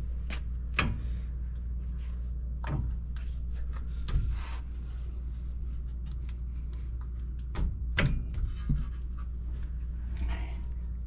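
Ford F-150 front brake caliper being worked back into place over the bracket and new pads: scattered metal clicks, knocks and rubbing, with a small cluster of knocks about eight seconds in. A steady low hum runs underneath.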